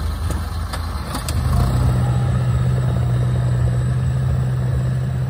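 Diesel engine of a tracked rice combine harvester running close by, picking up about a second in and then holding a steady, loud low drone. A few light clicks sound in the first second or so.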